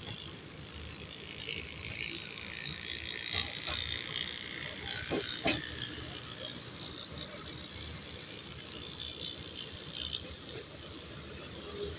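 Moving passenger train heard from inside the coach: steady running noise with a high, harsh squeal and rattle. It grows louder toward the middle, and there is a sharp click about five and a half seconds in.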